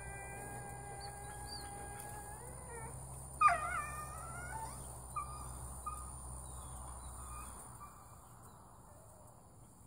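A dog moaning and groaning in her sleep. It starts with one long, steady moan lasting nearly three seconds, then a louder, wavering groan about three and a half seconds in, followed by a few faint short moans that die away.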